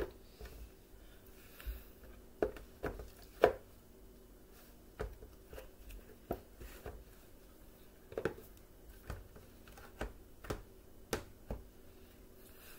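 Hard plastic parts of a Bissell PowerForce Bagless vacuum clicking and knocking irregularly as they are handled and fitted into the plastic base by hand, with the loudest knock about three and a half seconds in.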